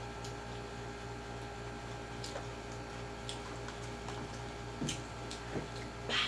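Soft, scattered clicks and small mouth and utensil sounds of eating, a few times, over a steady electrical hum.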